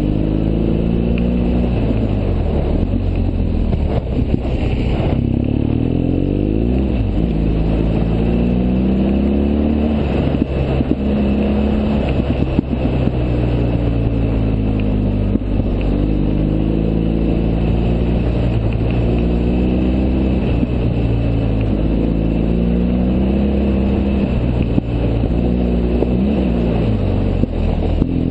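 BMW GS boxer-twin motorcycle engine heard from on board the bike, its pitch repeatedly rising and falling as the rider accelerates and shifts along a dirt and gravel road, with steady wind rush and occasional jolts from the rough surface.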